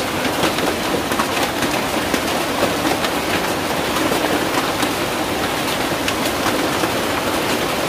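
Hailstorm: hail and heavy rain pelting the roof overhead, a steady dense roar peppered with many sharp clicks of hailstones striking.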